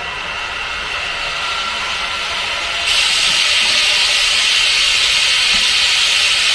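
H0-scale model freight train running on the layout's track: a steady rolling noise with faint whining tones. About three seconds in a louder, higher hiss starts suddenly, then cuts off abruptly near the end.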